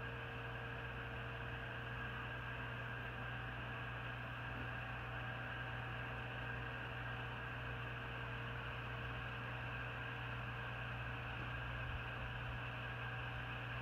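Greenhouse circulation fans running: a steady low hum with a faint airy hiss and a few faint steady tones, unchanging.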